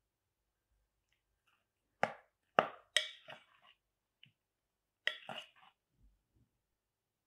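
A plastic spoon clicking and tapping against a glass mixing bowl while spooning powder onto flour: three sharp taps about two to three seconds in, then another short cluster about five seconds in.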